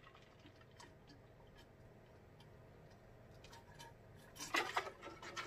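A person drinking from a glass mug: faint small clicks, then a few louder gulps and swallows near the end.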